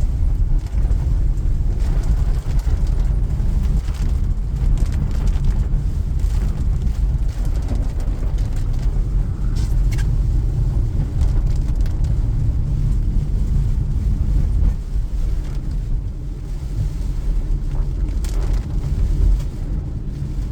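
Car driving, heard from inside the cabin: a steady low road and engine rumble that eases slightly about fifteen seconds in.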